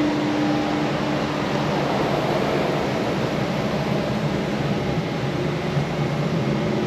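Steady rushing hum of an air-conditioning fan, with a faint tone fading out about a second and a half in.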